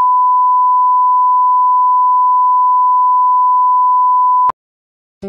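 Steady 1 kHz reference test tone, the 'bars and tone' line-up signal that goes with SMPTE colour bars: a single loud pure beep that cuts off sharply about four and a half seconds in.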